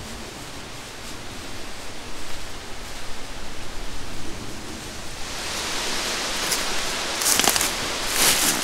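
Footsteps crunching and rustling through dry fallen leaves, starting about halfway through and growing louder and closer in the last few seconds, over a steady rustling hiss.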